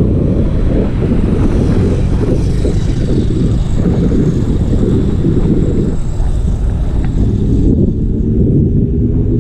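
Wind buffeting the microphone of a camera on a moving bicycle, a dense low rumble mixed with tyre and road noise. Near the end a steady hum with several tones joins in.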